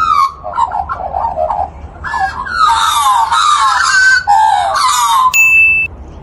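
Australian magpie calling, a run of pitched, mostly falling notes. There is a short steady high tone near the end.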